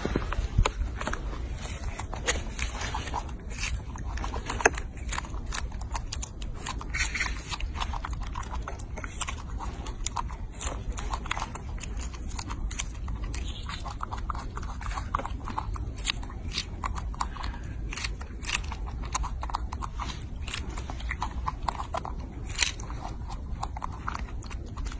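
A young macaque chewing and biting into strawberries: a steady, irregular run of wet smacking and munching clicks, with a few sharper clicks, over a low steady rumble.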